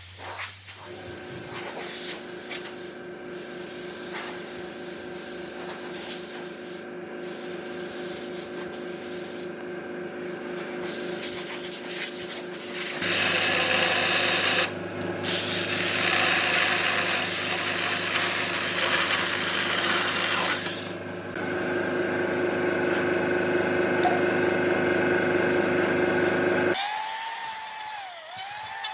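An electric power tool running steadily as it works wood. The motor note and the hiss of the cutting grow stronger about halfway through, change again later, and the tone begins to waver near the end.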